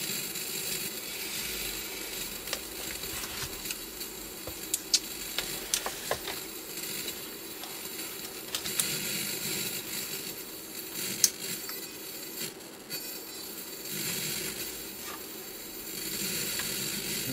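Steady hiss with scattered sharp clicks and crackling from a TC Electronic Fireworx effects unit's audio output while its powered board is pressed and probed. The crackling distortion is a fault at or around the analog-to-digital converter stage, which the owner suspects is a ground problem.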